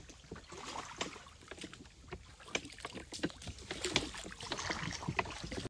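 Faint, irregular small splashes and clicks of water against a small boat moving slowly through calm water.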